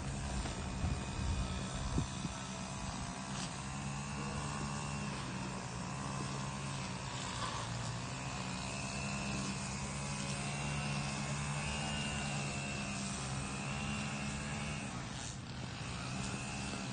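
A steady engine drone holding an even pitch, easing off about fifteen seconds in.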